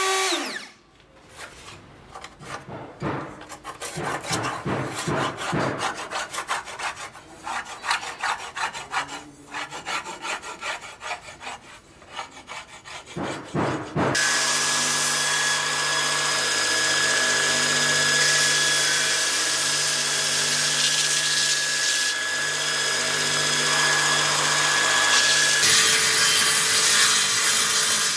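Plunge router motor winding down at the start, then knocks, clicks and rubbing of wood and tools being handled. About halfway through, a woodworking machine is heard running steadily with a hiss and a low hum, and its sound changes a few seconds before the end.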